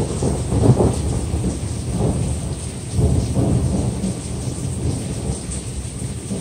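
Thunder rumbling and rolling, swelling again about a second in and about three seconds in, then easing toward the end, over the steady hiss of rain.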